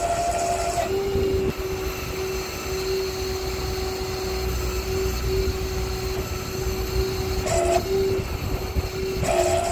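Crane running while it moves a forklift mast's lift chain hanging from its hook: a steady whine over a low rumble. A higher second tone joins briefly at the start, again about three-quarters of the way through, and near the end.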